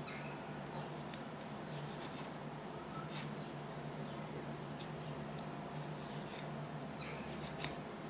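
Small metal file scraping the metal contact of a flashlight tailcap switch in short, irregular strokes, heard as light scratches and ticks, with a sharper click near the end: rust being rubbed off the switch conductors.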